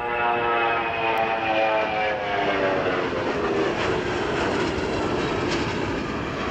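Royal New Zealand Air Force Boeing 757's twin turbofan engines on a low pass. A stack of whining tones falls in pitch as the jet goes by and gives way to a broad jet roar.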